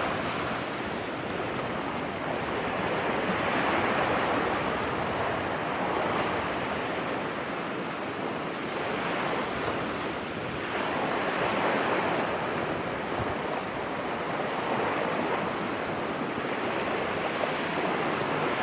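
Sea waves breaking on a beach, a continuous surf that swells and eases every few seconds, with some wind on the microphone.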